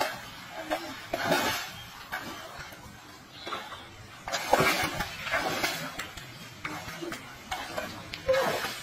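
Water splashing and sloshing in uneven bursts as a person wades through shallow, muddy stream water.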